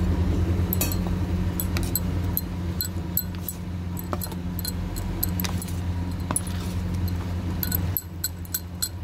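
Steel spoon scraping and clinking against a steel bowl while beating chickpea-flour batter with water, with irregular clinks that come thicker near the end. A steady low hum runs underneath.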